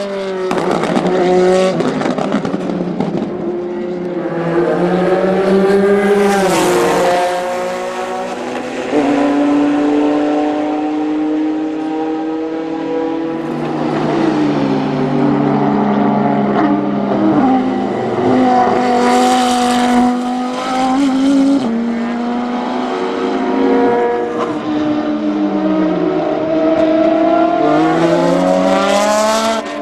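Endurance racing prototypes and GT1 race cars passing at speed one after another, their engines rising and falling in pitch through gear changes and pass-bys. Near the end a Maserati MC12 GT1's V12 accelerates past, climbing in quick rising sweeps as it shifts up.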